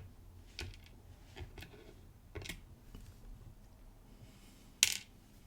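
Scattered light clicks and taps of metal tweezers and small dimple-lock pins being handled as the lock is taken apart. There are about five of them, with one sharper click near the end.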